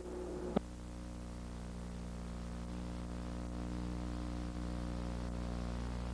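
Steady electrical hum with a click about half a second in.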